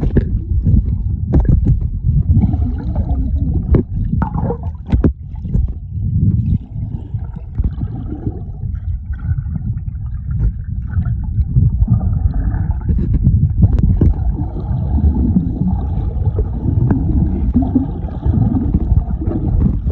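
Water sloshing and gurgling close to the microphone: a heavy, muffled low rumble with scattered knocks and splashes.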